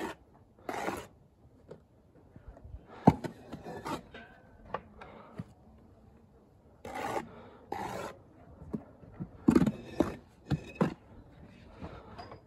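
Steel brick trowel scraping mortar in short strokes, with a few sharp knocks, the loudest about three seconds in.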